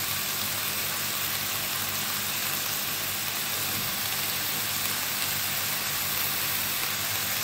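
Diced turkey and onion frying in olive oil in a nonstick pan: a steady, even sizzle.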